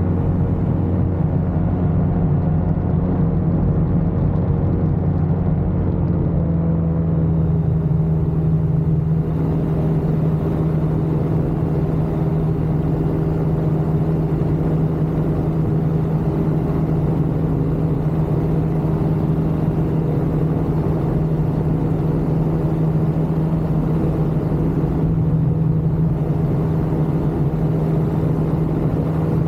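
Ultralight aircraft engine running steadily; its note shifts slightly lower about six seconds in and then holds.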